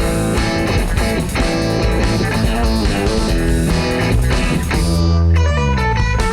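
Funk band playing an instrumental groove with electric guitar, bass guitar and drums. About five seconds in the cymbals drop out and a stepped, descending bass run comes to the front.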